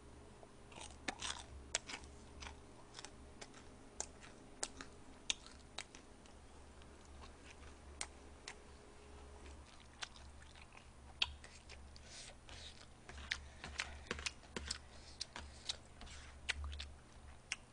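Close-miked chewing of fried sweet and sour pork and fried rice, with irregular sharp clicks and taps of a plastic spoon against the plates.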